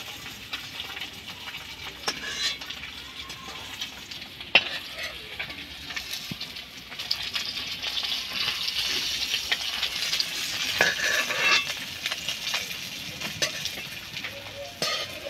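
Katla fish pieces sizzling in hot oil in a metal kadai, with a metal spatula clicking and scraping against the pan as the fried pieces are lifted out. The sizzle grows louder about halfway through, and there is a sharp clink about four and a half seconds in.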